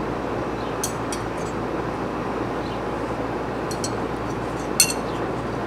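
Several steel throwing knives clinking against one another in the hand as they are gathered from the target and carried back, a few light clinks with the sharpest one about five seconds in, over a steady outdoor background hiss.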